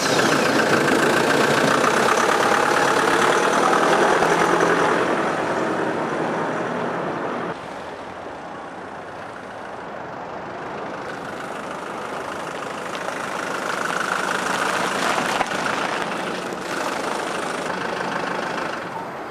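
Car engine running just after being started, loud at first, then dropping noticeably about seven and a half seconds in and carrying on at a lower level.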